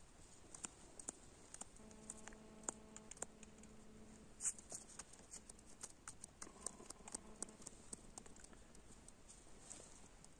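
Near silence with faint scattered clicks and ticks from an ice angler handling his fishing line and tackle by hand over the hole; the loudest click comes about four and a half seconds in. A faint steady hum is heard twice, about two seconds in and again near seven seconds.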